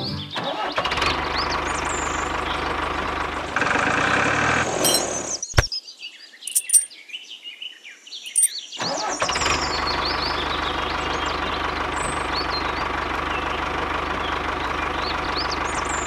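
Steady tractor-engine running sound for a miniature model tractor. It stops about five and a half seconds in, leaving a gap of a few seconds with a sharp click, small clicks and bird chirps, then starts again and runs steadily.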